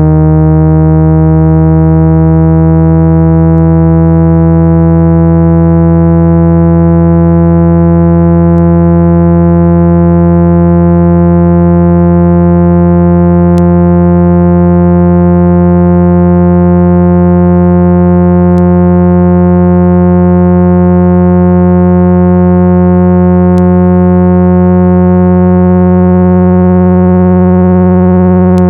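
Loud, steady, buzzy 165 Hz speaker-cleaning tone, electronically generated to vibrate dust out of a phone speaker. Its upper overtones slowly rise in pitch, then drop back near the end.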